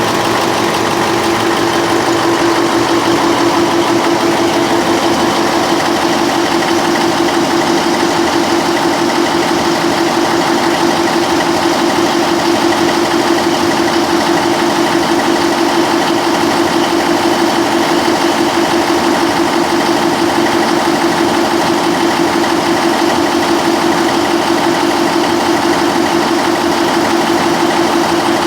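Generator-set engine running steadily at a constant speed.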